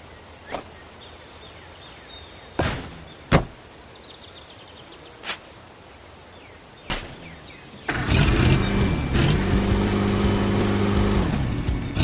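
Cartoon vehicle sound effects: a few short knocks over a quiet background, then from about eight seconds in a loud, steady engine-like sound.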